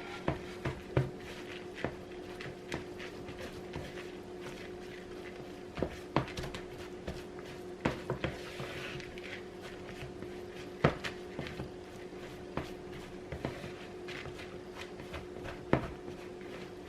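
A spatula stirring a crab, cheese and seasoning mixture in a mixing bowl, with scattered scrapes and irregular knocks against the bowl, the loudest about eleven seconds in. A steady hum runs underneath.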